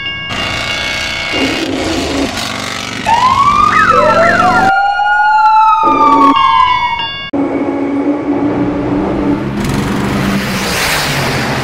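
Police siren wailing in rising and falling sweeps, starting about three seconds in and cutting off abruptly some four seconds later, over a rumble of vehicle noise.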